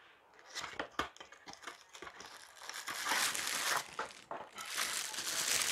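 Clear plastic wrapping and a cardboard box crinkling and rustling as a kitchen hand beater is unpacked. A few light clicks come first, and the crinkling turns dense from about halfway through.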